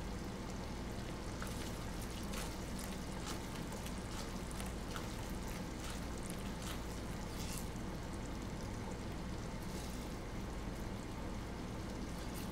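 Thick Parmesan cream sauce simmering gently in a saucepan on low heat, with small scattered bubbling pops as a silicone spatula stirs it, over a steady low hum.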